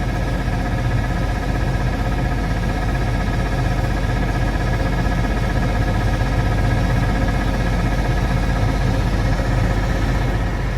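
An engine running at a steady idle, even and unchanging throughout.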